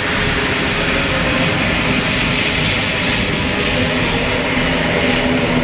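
ATR twin-turboprop airliner taxiing, both engines running and propellers turning with a steady drone. A low propeller hum grows stronger near the end as the aircraft turns.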